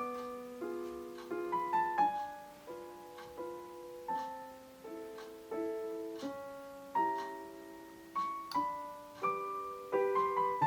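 Soft background piano music: a slow, gentle melody of single notes and chords, each fading out after it is struck.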